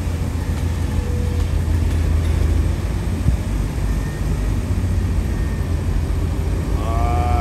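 Steady low drone of a car's engine and road noise heard inside the cabin while driving.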